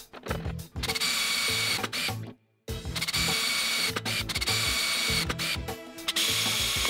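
Cordless drill boring through aluminum angle: a steady high whine with cutting hiss, in two runs split by a short break about two and a half seconds in. Background music with a beat runs underneath.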